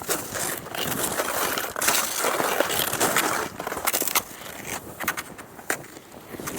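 Cross-country skis scraping and crunching over snow, with many short clicks. It is loudest through the first half and lighter near the end.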